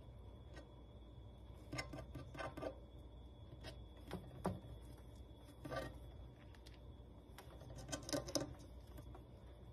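Faint, scattered clicks and scrapes in four short clusters from a Syrian hamster gnawing and pawing at the glass-and-plastic rim of its enclosure.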